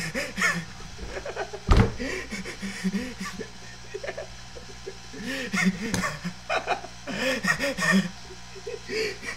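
A man laughing and giggling excitedly in short bursts, with a sharp thump about two seconds in.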